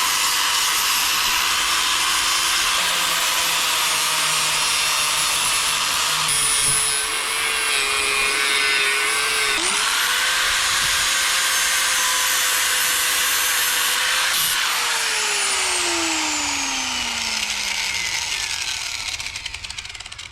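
Angle grinder working the steel trailer frame, grinding down old welds and cleaning the metal before welding, its motor pitch sagging as it is pressed harder. About three-quarters of the way through it is switched off and winds down, its pitch falling steadily over several seconds.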